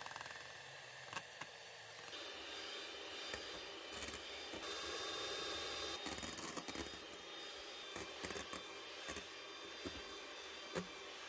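Electric hand mixer (Kenwood) running in a stainless steel bowl, its beaters whipping eggs and sugar into a thick foam with sharp ticks where they strike the bowl. The mixer is switched from high speed to medium speed about halfway through.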